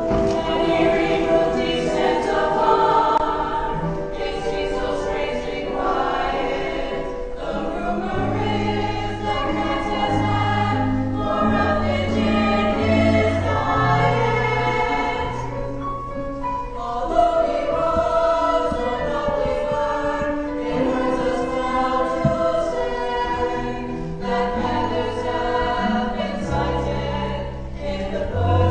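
A group of voices singing together in held notes over an instrumental accompaniment, with a bass line that comes in about eight seconds in.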